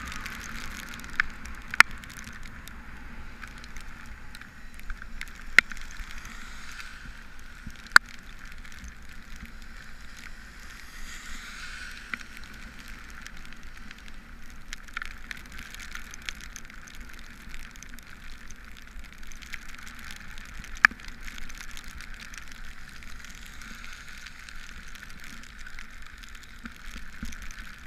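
Cargo bike rolling along a wet road in the rain: a steady hiss of tyres on wet tarmac, with about five sharp clicks scattered through, three of them in the first eight seconds.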